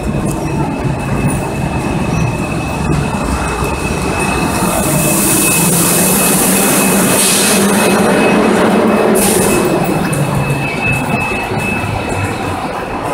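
NS 1700 electric locomotive and its coaches pulling into a platform, rumbling and hissing loudest as the locomotive passes close about halfway through, then easing. A thin, steady high brake squeal sounds throughout as the train slows to stop.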